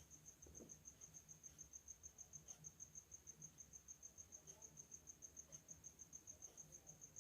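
Near silence: room tone with a faint, high-pitched chirp pulsing evenly, about eight pulses a second.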